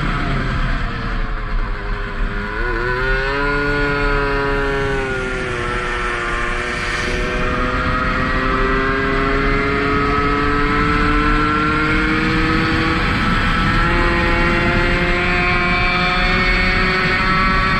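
Tomos 50 cc two-stroke single-cylinder racing moped engine heard onboard at speed. Its revs dip and waver through a slow corner a few seconds in, then climb steadily as the bike accelerates, over a steady low rush of wind.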